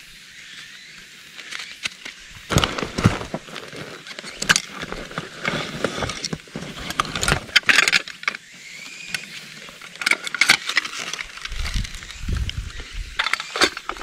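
Gear being handled by gloved hands: rustling of fabric and backpack straps with irregular clicks and knocks as a tool is pulled from a leather sheath.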